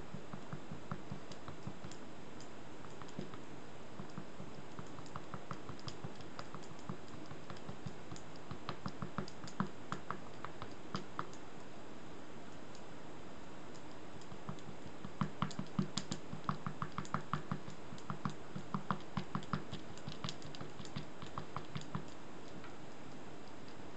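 Ink brush dabbing and stippling onto a shikishi paper board in quick runs of light taps, a few a second: a short run about a third of the way in and a longer, louder run in the second half, over a steady hiss.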